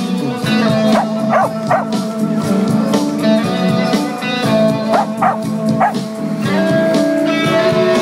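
Loud pop music played over the passing promotional bus's loudspeakers, with held notes and a steady low pattern. Several short sharp sounds stand out over it, about a second and a half in and again around five seconds in.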